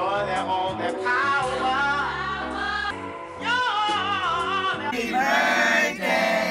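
Background music: a song with sung vocals over held bass notes that change step by step, growing fuller about five seconds in.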